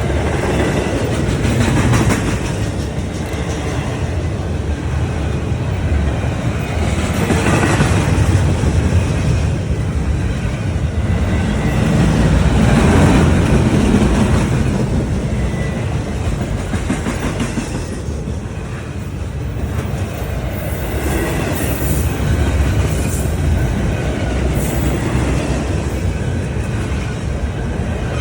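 A train running on its rails: a steady loud rumble of wheels on track, with louder clattering swells every few seconds.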